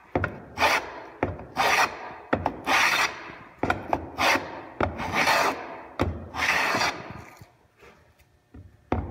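Stanley No. 78 rabbet plane cutting a rabbet along a board's edge: about six planing strokes a little over a second apart, each opening with a sharp tap as the plane is set down, the strokes growing a little longer as they go. The strokes stop about seven seconds in.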